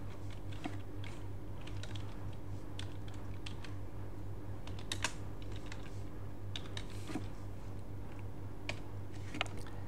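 Computer keyboard being typed on: sparse, irregular keystrokes, one a little louder about five seconds in, over a steady low hum.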